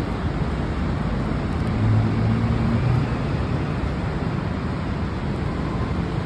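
Steady city street traffic noise, with a low engine hum that grows louder for about a second around two seconds in.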